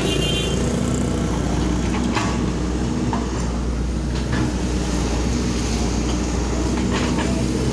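Excavator diesel engine running steadily with a deep hum, with a few faint clicks.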